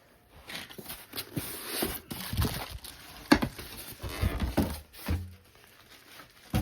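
Cardboard box and packing material being handled as a computer monitor is worked out of its box: irregular scraping and rustling with a few knocks and dull thuds, one sharp knock a little past the middle.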